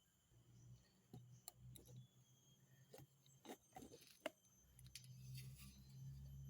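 Faint clicks and light metallic clinks of small brake caliper parts being handled, over a low hum that comes and goes and is strongest near the end.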